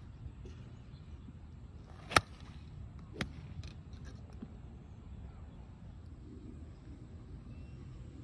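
An iron striking a golf ball off turf: one sharp, loud crack about two seconds in, followed by a fainter click about a second later. Steady low background noise throughout.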